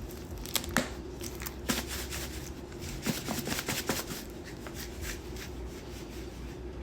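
Dry powders and granules (borax, washing soda, citric acid and sea salt) being stirred together in a container: soft, irregular scraping and clicking strokes, busiest in the first few seconds.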